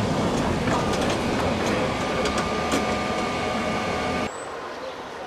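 Gotha-built tram car running past at close range: wheels rumbling on the rails with scattered clicks, and a steady whine from about two seconds in. The sound cuts off suddenly about four seconds in, leaving quieter street noise.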